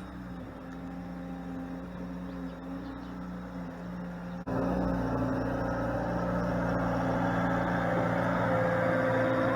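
A vehicle engine running steadily, stepping up abruptly to a louder, fuller sound about four and a half seconds in.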